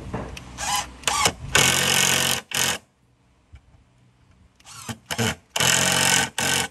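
Cordless impact driver driving wood screws into pine boards: short trigger blips, then a run of about a second as each screw goes in, twice, a few seconds apart.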